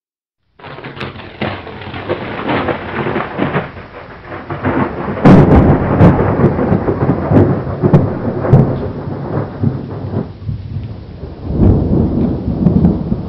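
Thunderstorm: rain with rumbling, crackling thunder that starts abruptly, a sharp thunderclap about five seconds in, and a second swell near the end.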